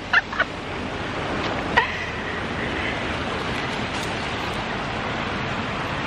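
Fast-flowing creek water rushing, a steady hiss, with a few short, sharp bird calls in the first two seconds.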